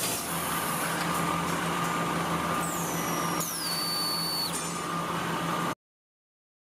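Udon noodle-making machinery running with a steady mechanical hum, with two high whines that fall in pitch midway; the sound cuts off abruptly near the end.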